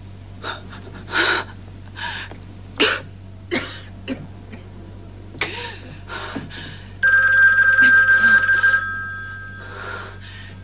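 A woman panting and gasping in short heavy breaths, then a desk telephone's bell rings loudly for about two seconds, starting about seven seconds in, and dies away.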